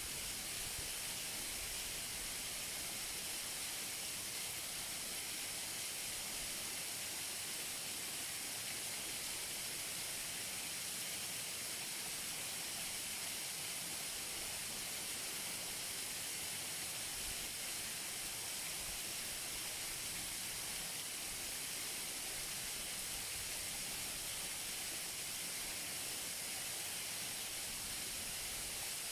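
Waterfall heard close up: water falling and splashing in a steady, even hiss, strongest in the high end.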